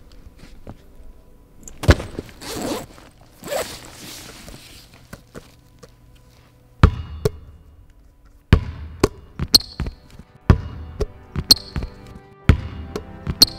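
Sparse basketball thuds and knocks with a brief swishing noise, then from about halfway a rhythmic beat of heavy thuds, roughly one or two a second, with a crisp high snap on some of the beats.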